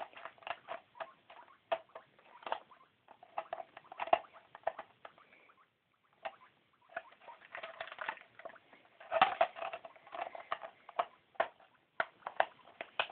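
A guinea pig moving about inside a plastic exercise ball: rapid, irregular clicking and tapping. There is a short pause about five and a half seconds in.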